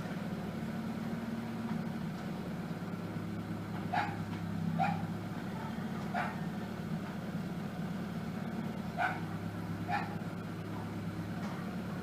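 A Mitsubishi Lancer's engine idling steadily during warm-up from a cold start, the rough idle cured after fitting a new MAF sensor. Over it, a dog barks five times, a second or so apart, starting about four seconds in.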